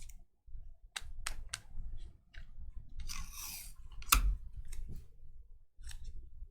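Trading cards being handled on a table: several sharp clicks and taps, a brief sliding swish of card stock, and one louder tap with a thump about four seconds in.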